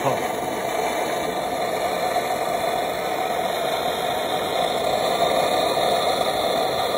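Handheld Rothenberger Multigas 300 gas blowtorch burning with a steady roar, its flame played into a cylinder bore of a seized engine block.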